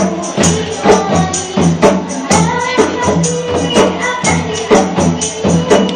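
Nasyid sung by a group of female voices over hand-drum percussion, with a steady beat of about two strong strokes a second.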